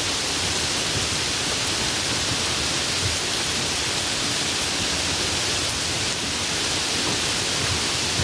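A steady, even hiss with no rhythm or breaks.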